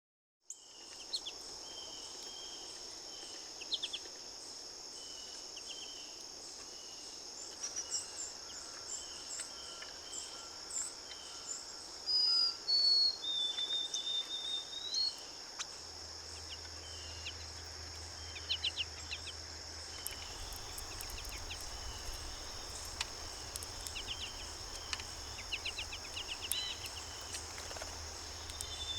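Small birds chirping and calling over a steady, high-pitched drone of insects such as crickets. A longer whistled bird call, falling and then rising, comes about twelve seconds in.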